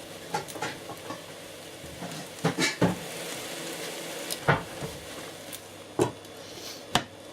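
White mushrooms sizzling as they fry in a pan, a steady hiss, with about five short knocks of a utensil or lid against the pan.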